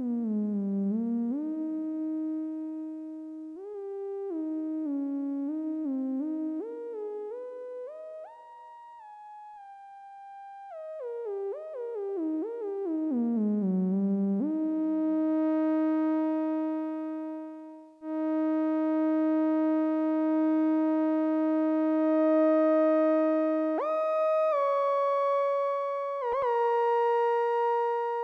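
Behringer Odyssey analog synthesizer playing a melodic lead line. Each note slides in pitch into the next. In the second half it settles into long held notes, then jumps higher near the end.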